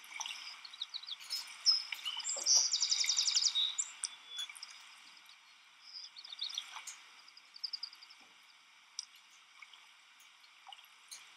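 Wild birds chirping and calling, with a fast trill of quickly repeated high notes lasting about a second, around three seconds in, over a faint steady background hiss.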